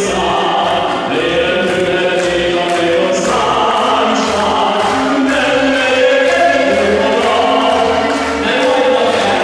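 Male singer singing a Hungarian operetta song into a microphone over amplified accompaniment with a steady beat.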